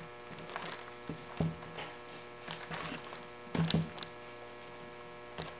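A pair of sneakers handled and turned on a wooden tabletop: scattered soft taps and bumps, the loudest a couple about three and a half seconds in, over a steady hum.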